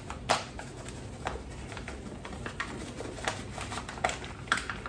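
Paper flour bag rustling and crinkling as flour is poured from it into a stainless steel mixing bowl, with a scattering of short sharp crackles, the loudest just after the start.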